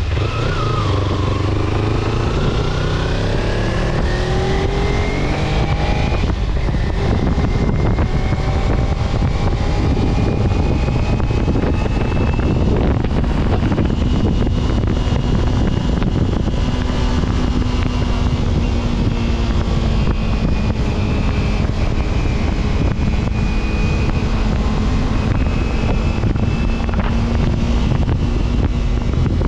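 Road vehicle under way. Its engine pitch climbs for about six seconds, drops with a gear change, climbs again more slowly, then holds steady at cruising speed, over a heavy low rumble of road and wind noise.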